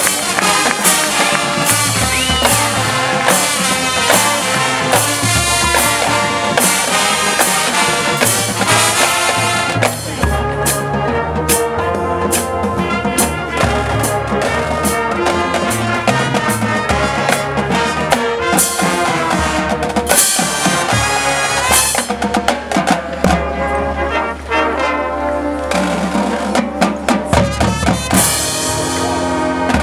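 Marching band playing live: brass with marching drums and front-ensemble percussion. About ten seconds in it drops to softer held brass chords, and drum hits come back near the end.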